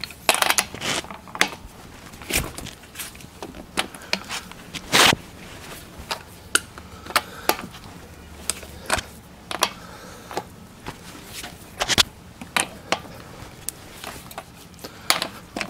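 A 1/2-inch drive ratchet and 21 mm deep-well socket working on a truck's wheel lug nuts to break them loose: irregular metal clicks and clanks, the loudest about five seconds in, around twelve seconds and near the end.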